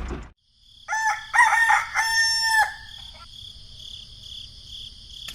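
Rooster crowing once, about a second in: a few short broken notes running into one long held note.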